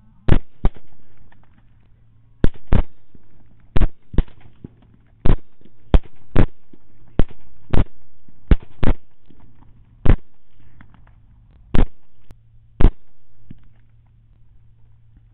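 Rapid suppressed AR-15 rifle fire: about sixteen sharp cracks over roughly twelve seconds, some in quick pairs and some single, each followed by a short tail of echo.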